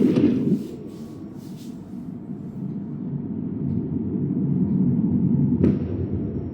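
Low rumbling anime sound effect that swells over a few seconds, with a sudden sharp hit about five and a half seconds in, then dies down.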